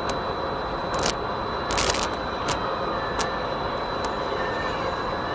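Steady outdoor background noise with the faint, wavering whine of an FPV quadcopter's motors, broken by several sharp clicks about a second or less apart.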